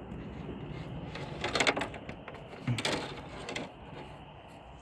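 Worn car engine idling with a steady, fast clattering knock, the sound of its rod knock.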